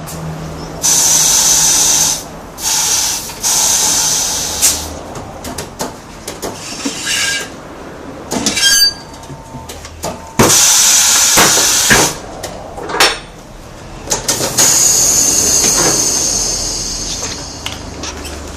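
Compressed air hissing from an air line in four loud bursts of a second or a few seconds each, with a few sharp clicks in between.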